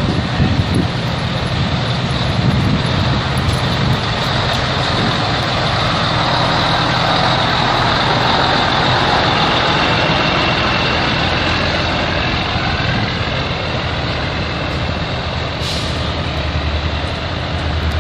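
Engines of old heavy trucks running as they drive slowly past close by, a steady low rumble. Near the end there is a short, sharp hiss, likely air brake release.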